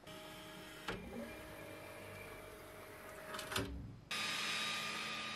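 xTool D1 Pro diode laser engraver homing: its stepper motors whine steadily as the laser head travels, with a click about a second in and a few more clicks around three and a half seconds. About four seconds in, the sound changes abruptly to a louder, steady hum with a higher tone.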